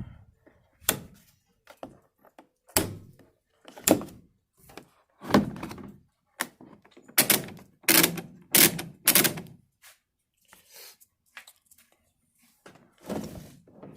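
Irregular hard thunks and knocks from a 3/4-inch drive click-type torque wrench being turned over and handled, a dozen or so separate impacts with a short lull near the end.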